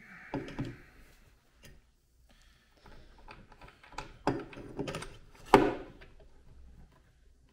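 Aluminium adjustable table leg being fitted into its surface-mount base: a short rustle, then a few sharp metallic knocks and clicks as the column is worked into the socket. The loudest knock comes about five and a half seconds in.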